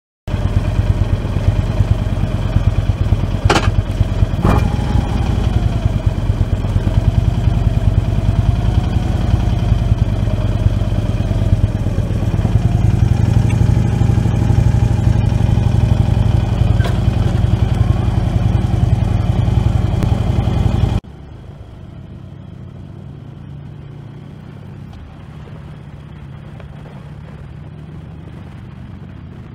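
Harley-Davidson Road King's V-twin engine running loud, its pitch rising and falling a little, with two sharp clicks a few seconds in. About two-thirds of the way through it cuts suddenly to a quieter, steady engine and road rumble from the bike riding along the highway.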